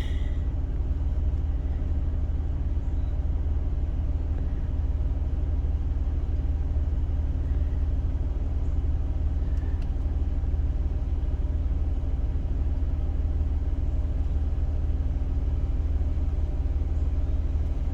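Jeep Cherokee Trailhawk's engine idling, a steady low rumble.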